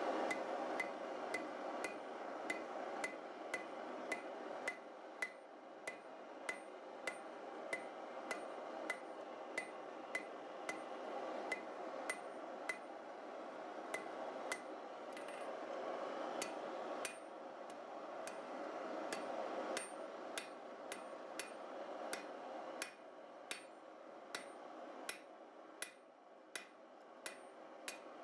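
Hand hammer striking a red-hot steel bar on an anvil to draw out a taper, in a steady rhythm of about one and a half blows a second, each blow with a short metallic ring. A steady rushing noise runs underneath.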